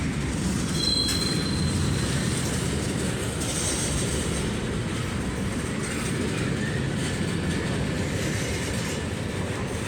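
Freight train cars, coil cars among them, rolling past close by: a steady rumble of steel wheels on rail, with a brief high squeal about a second in.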